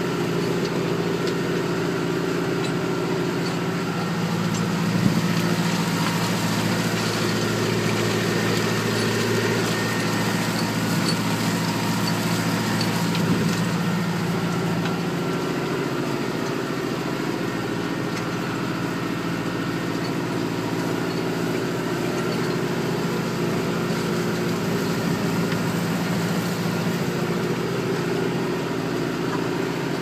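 Massey Ferguson 5440 tractor's diesel engine running steadily while ploughing, with two brief knocks, about five seconds in and again about thirteen seconds in.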